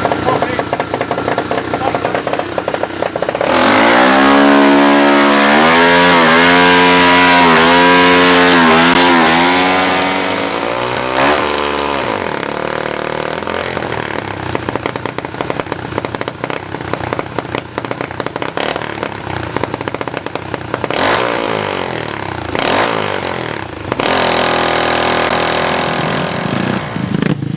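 Dirt kart engine running on a kart stand, revved up and held high with a wavering pitch for several seconds, then dropping back to lower, uneven revs with a couple of short blips near the end.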